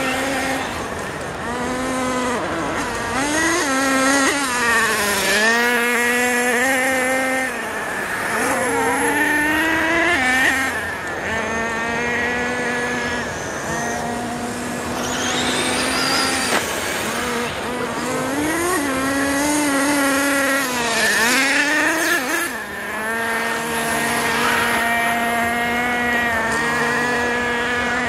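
Several radio-controlled model cars racing, their small engines buzzing at a high pitch and revving up and down over and over as they speed up and slow for the turns.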